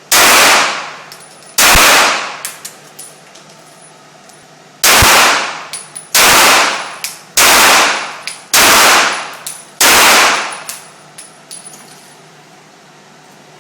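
Seven single gunshots, each followed by a ringing echo that fades over about a second. Two come about a second and a half apart, then after a pause of about three seconds five more follow at a steady pace, a little over one a second.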